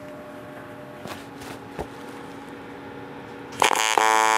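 AC TIG welding arc on aluminum, from a Miller Dynasty 350, struck about three and a half seconds in: a sudden, steady loud buzz with a high hiss as the tack is started. Before it only a faint steady hum and a single click.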